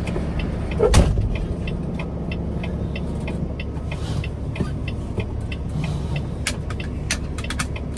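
Semi-truck diesel engine idling, heard from inside the cab, with one loud clunk about a second in and a quick, even ticking running on after it. Several sharp clicks come near the end as the seatbelt is drawn across and buckled.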